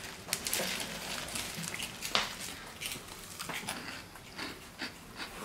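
Irregular crunches and small clicks of carrot mango quinoa puffs being chewed and handled from their snack tub.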